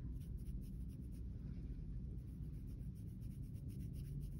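Coloured pencil shading on paper: a faint, quick, even run of scratchy strokes as the colour is laid down and blended.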